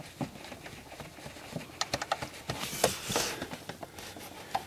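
Scattered small clicks and a brief scraping rub about two and a half seconds in, as a long screw is turned in by hand on the short shifter's mount.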